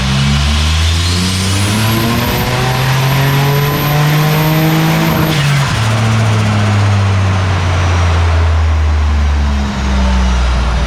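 Turbocharged VY Commodore 3.8-litre V6 revving up under load on a chassis dyno. Its pitch climbs steadily with a thin high whine rising above it. About five seconds in the note drops sharply and the engine winds down slowly.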